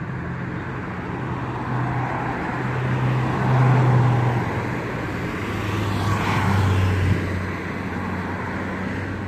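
Cars passing on the street close by, engine hum and tyre noise swelling twice, loudest about four seconds in and again near seven seconds, the engine note lower on the second pass.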